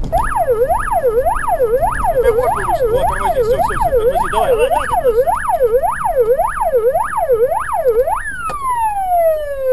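Police car siren yelping, its pitch sweeping up and down about twice a second, then switching about eight seconds in to one long falling tone as it winds down. Engine and road rumble underneath.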